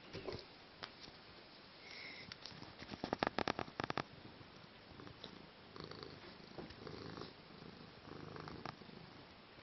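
Domestic cat purring close to the microphone, swelling and fading in waves. About three seconds in there is a short, loud run of rapid clicks.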